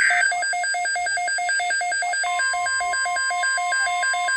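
Alert tones for an incoming NOAA Weather Radio alert: the tail of a buzzy SAME data burst, then a rapid two-note warbling beep of a weather radio alarm, about four to five beeps a second. About two seconds in, the steady NOAA Weather Radio warning alarm tone joins underneath.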